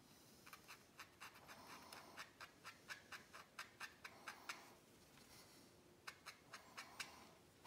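A nearly dry Sharpie marker scratching faint quick strokes onto the side of a foam polishing pad, about four a second, pausing and then making a few more near the end.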